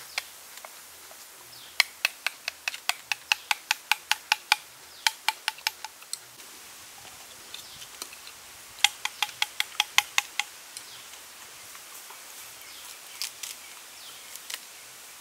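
Runs of sharp, evenly spaced clicks, about four or five a second, in three bursts of one to three seconds each, over a faint outdoor background.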